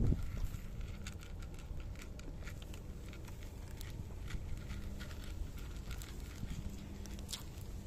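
Cats crunching dry kibble from a bowl: an irregular run of small crisp crunches and clicks.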